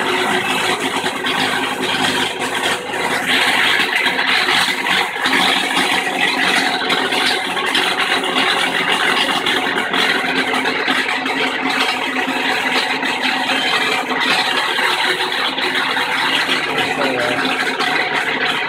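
Kenmore washing machine in its spin cycle, running with a loud, steady, horrible mechanical noise. The tub is spinning while the agitator stays still, a fault traced to the backed-off nut that holds the stator cover to the bottom of the tub.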